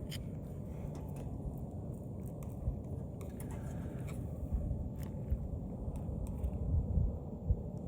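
A person chewing food, with a few small clicks and knocks, over a steady low background rumble.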